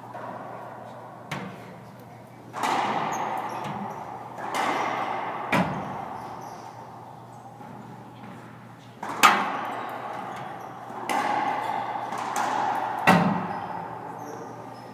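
A racquetball rally: the hollow rubber ball cracks off racquets and the court walls about seven times, each hit echoing for a second or more in the enclosed court. The loudest crack comes about nine seconds in.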